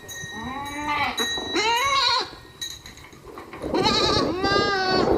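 Goat bleating: two short bleats in the first two seconds, then a longer, wavering bleat near the end.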